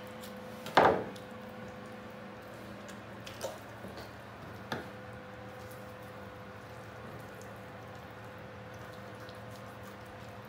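Wet burbot being handled and cut with a knife on a plastic cutting board: a loud thump about a second in, then two lighter knocks a few seconds later, over a steady machine hum.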